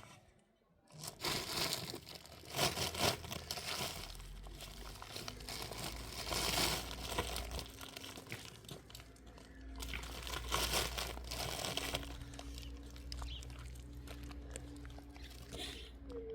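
Rustling and crinkling noises, coming in several irregular bursts over a low steady rumble.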